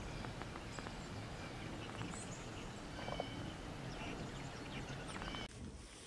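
Scattered short, high chirps and calls of small feeder birds, tufted titmice and chickadees, over a steady low outdoor rumble.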